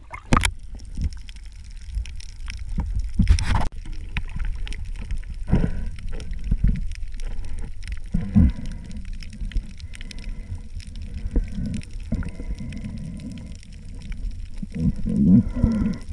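Muffled underwater gurgling and bubbling over a low rumble, as heard by a camera submerged in sea water, with a few sharp knocks, the loudest about three and a half seconds in.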